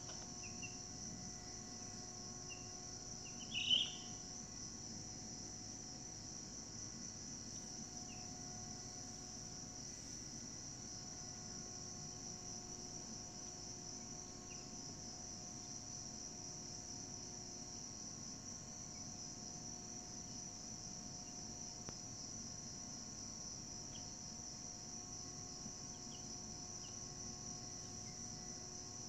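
Steady high-pitched chorus of crickets, with a short, louder high chirp about four seconds in.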